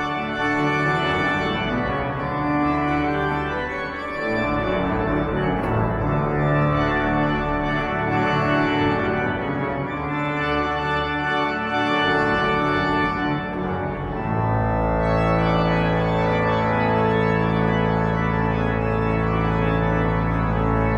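The pipe organ of St Pierre Cathedral playing sustained chords that shift every two seconds or so. About two-thirds of the way through, deep bass notes come in and the sound grows fuller.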